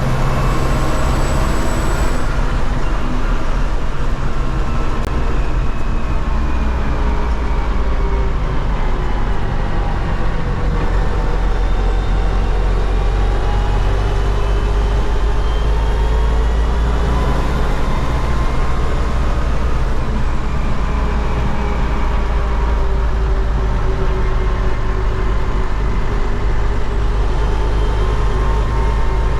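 MTZ-80 tractor's D-243 four-cylinder diesel engine running steadily loud while driving, its note falling and rising several times as engine speed changes.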